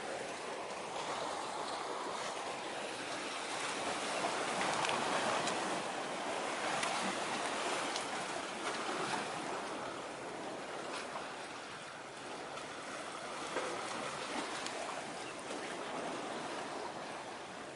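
Sea waves washing in and drawing back: a steady rushing that swells and eases over several seconds, loudest around the middle.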